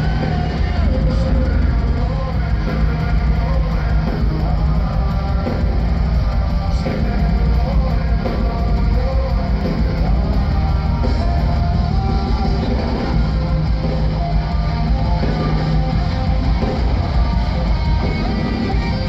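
Live heavy metal band playing loud over an arena sound system: distorted electric guitars, bass and drum kit.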